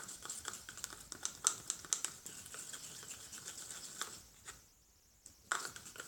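A stick stirring thick paint in a plastic cup, tapping and scraping against the cup's sides in quick, irregular clicks. The clicking stops for about a second near the end, then one more click.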